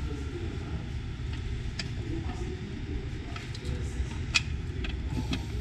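A few light clicks and knocks as a compression driver is handled and seated onto its horn, the sharpest about four seconds in, over a steady low rumble.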